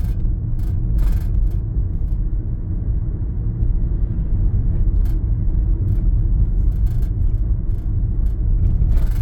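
Car driving on a highway, heard from inside the cabin: a steady low road and engine rumble with a few faint clicks.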